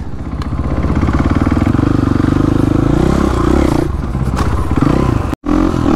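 Dirt bike engine accelerating, its pitch rising for about three seconds before easing off. The sound cuts out for a moment near the end, then the engine is picking up again.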